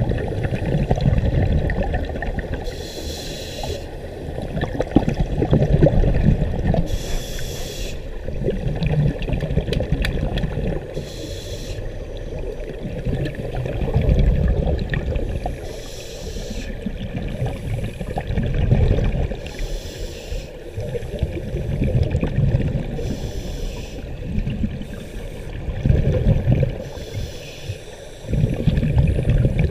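Scuba diving breathing underwater through a regulator: a short hiss on each inhale and a bubbling rumble on each exhale, repeating about every four seconds.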